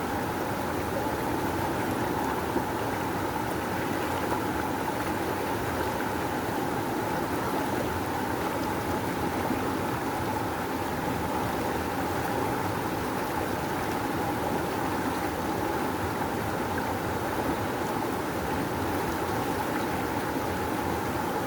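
Rushing river: fast water flowing with a steady, unbroken rush.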